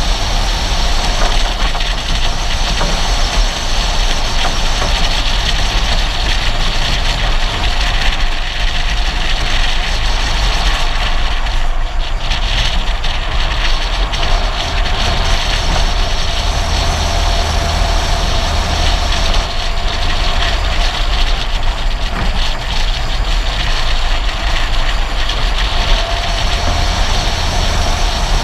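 Steady road noise from a car driving down a mountain road: tyre and wind rush over a low engine hum, with no letup.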